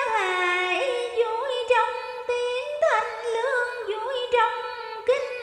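Vietnamese vọng cổ music: a high melody of sustained notes that bend and slide in pitch, with a fresh note attack every second or so.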